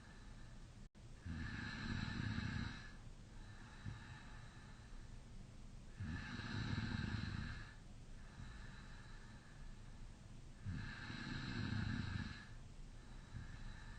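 A person snoring in deep sleep with the mouth slightly open: three loud snores, one about every four to five seconds, with quieter breathing between them.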